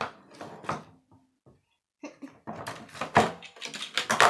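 Metal and plastic Beyblade parts clicking and rattling as they are handled in a plastic case. A short lull after the first second, then busier clattering toward the end.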